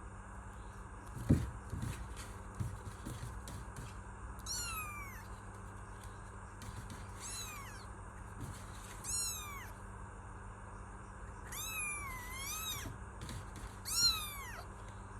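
Kitten meowing repeatedly: about six short, high-pitched meows, each falling in pitch, spaced a couple of seconds apart. A low thump about a second in is the loudest sound.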